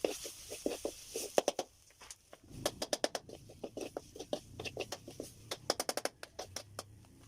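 Quick, irregular knocks of food preparation, several a second, with a short break about two seconds in.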